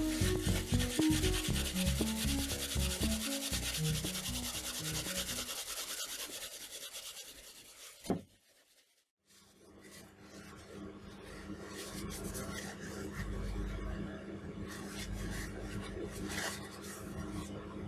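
Steady abrasive rubbing, like sanding or filing a steel axe head, over a background melody in the first half. About eight seconds in there is a sharp click and a brief silence. The rubbing then returns with a steady low hum.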